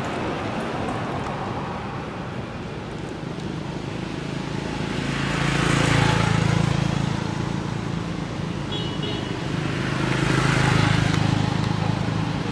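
Motor vehicles passing on a road: two swell up and fade away, one around the middle and another near the end, over a steady traffic hum.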